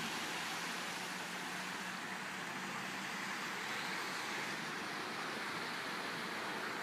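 Steady rushing of fast-flowing water, a stream running high after heavy rain.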